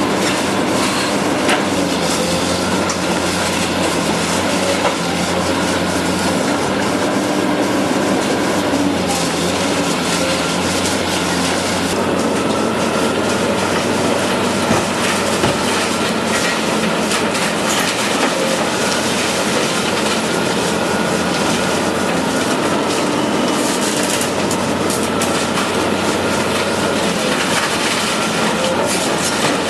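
Excavator with a hydraulic concrete crusher attachment at work: a steady engine and hydraulic drone with a faint whine, and scattered cracks of concrete breaking in the jaws.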